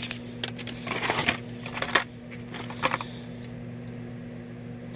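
Plastic zip-top bags and blister-carded Hot Wheels cars crinkling and rustling as a hand rummages through a plastic tote. The rustling comes in several short bursts over the first three seconds and then eases off, with a steady low hum underneath.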